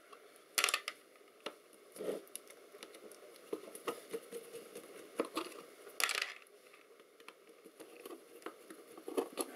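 Scattered small metallic clicks and clinks as screws are undone and handled on the side cover of a metal avionics box, with a few louder knocks among them.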